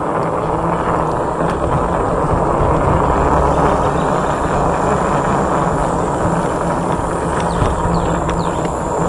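Steady rush of wind on the microphone and tyre noise from an e-bike rolling along a concrete path.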